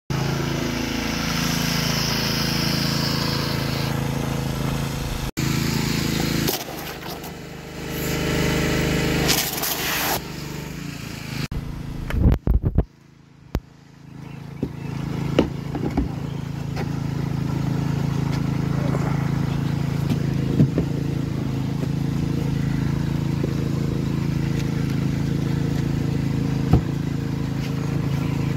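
A small engine running steadily with an even, many-toned hum, as from the gas pressure washer of a mobile car-wash rig. It drops away briefly twice, and a few sharp knocks come about twelve seconds in.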